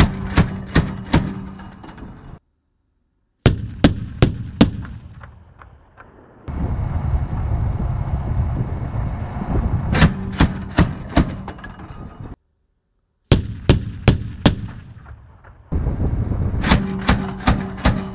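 30 mm automatic cannon on a remote weapon station firing short bursts of about four or five rounds each, five bursts in all, over a steady rumble, with abrupt cuts between them.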